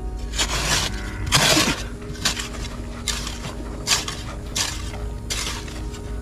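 Metal digging hoe chopping and scraping into packed soil and clods, about seven strokes a little under a second apart, the second one the loudest.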